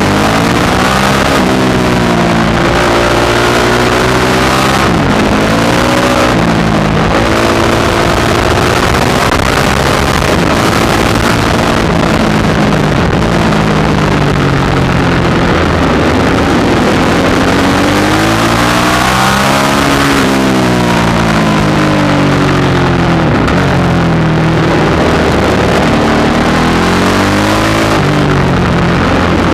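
Onboard sound of a supermoto motorcycle engine at full race pace. It revs up through the gears and drops back off when braking for corners, over and over through the lap, with heavy wind noise on the microphone.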